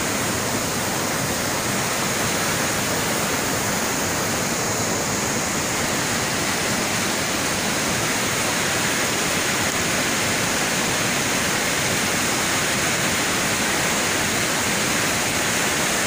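Mountain stream in full spate after heavy rain, white water rushing steadily over rocks.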